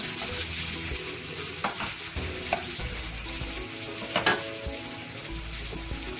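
Shrimp and diced tomatoes sizzling in a frying pan, stirred with a wooden spatula. A few knocks and scrapes of the spatula against the pan come through the sizzle, the loudest a little after four seconds in.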